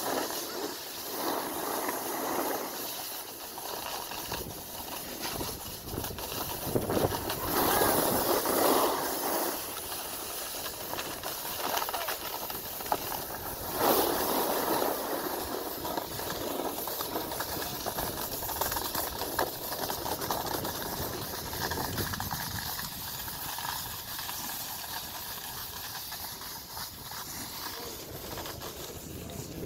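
Snowboards sliding and carving over hard, icy snow: a steady scraping hiss that swells louder several times as the edges dig in on turns.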